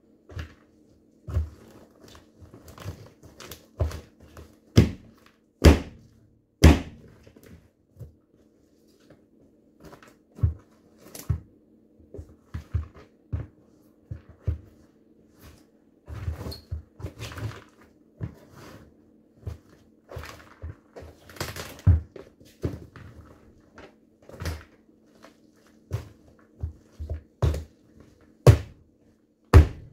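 Sneakers stomping and grinding a broken pumpkin on a wooden floor: a long, irregular string of thuds as the rind and flesh are crushed underfoot. A few of the impacts are longer and noisier than the rest.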